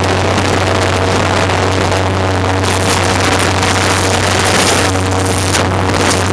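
Airboat's engine and air propeller running at speed: a loud, steady drone over a strong low hum. Wind buffets the microphone in gusts, about three seconds in and again near the end.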